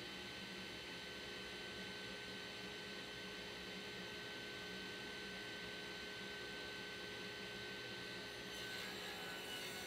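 Table saw running without a cut: a steady motor hum with thin, constant whine tones. A little more hiss comes in near the end.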